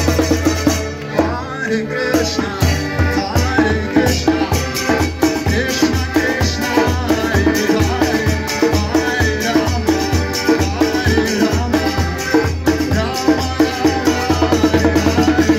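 Devotional kirtan: a man sings over the sustained chords of an accordion, while a djembe-style hand drum beats a steady, busy rhythm and small hand cymbals keep time.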